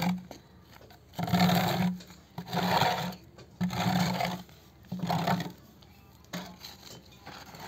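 Wood being cut by hand in rhythmic rasping strokes: four strong strokes a little over a second apart, each under a second long, then a weaker one near the end.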